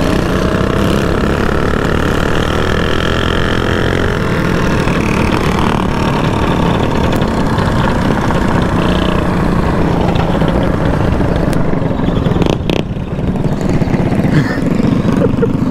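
Mini bike engine running steadily under way, heard close from the rider's helmet. The note eases off briefly near the end, with one sharp click.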